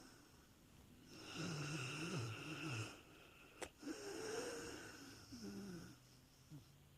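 A dog snoring in deep sleep: two long, wavering snore breaths, with a brief click between them.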